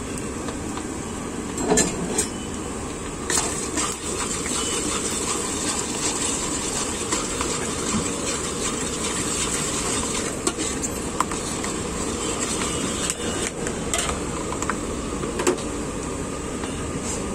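Tempering spices (cumin, mustard seed, fennel, turmeric) frying in hot oil in a large metal kadhai with a steady sizzle. A flat metal spatula stirs the oil, clinking and scraping against the pan several times.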